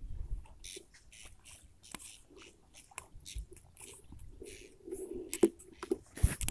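Scratchy, crackling rustles and a few sharp clicks as a speargun's line is hauled in by hand to bring in a speared snakehead.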